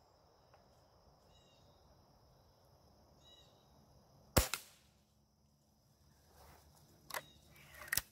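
A B3-1 spring-piston air rifle in .177 fires a single pellet shot about four and a half seconds in: one sharp crack with a brief ring-off. Near the end come a few lighter clicks, followed by one sharper click.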